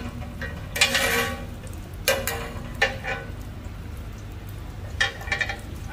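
Metal cooking utensils clanking and scraping against a pan several times, each strike sharp and briefly ringing, over a steady low rumble of street noise.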